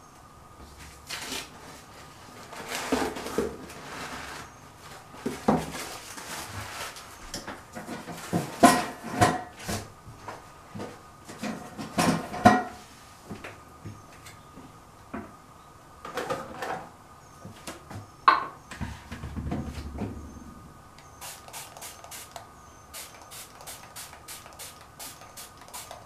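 Scattered knocks, clicks and rustling as things are handled, then a quick run of short sprays from a finger-pump spray bottle over the last few seconds.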